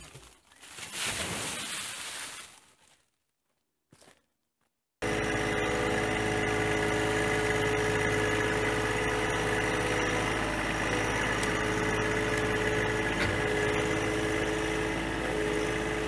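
Wood chips sliding and pouring off a dump trailer in a rushing hiss for about three seconds. After a short silence, a compact tractor's diesel engine runs at a steady speed.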